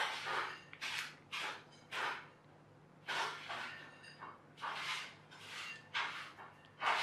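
Cardboard jigsaw puzzle pieces rustling and clicking against each other as a hand sorts through a loose pile on a cloth-covered table, in short irregular scrapes about one or two a second.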